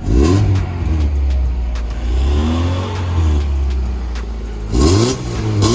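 1992 Mazda Miata's 1.6-litre four-cylinder engine revved in neutral through a newly fitted MagnaFlow stainless cat-back exhaust. A sharp rev right at the start is held for a few seconds, then a second quick rev comes near the end. The exhaust note is clean.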